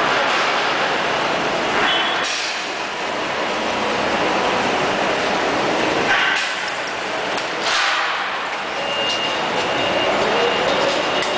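Drum filling line running: a loud, steady mechanical rushing noise, with a few short hisses cutting in, one about two seconds in and two more around six and eight seconds.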